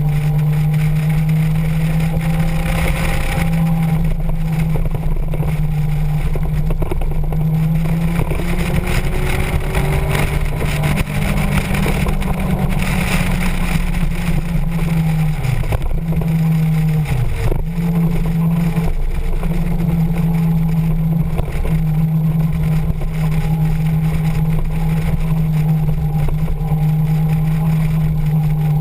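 Motorcycle engine running steadily at cruising speed, heard from the bike with low wind rumble on the microphone. A little past halfway the engine note dips briefly twice.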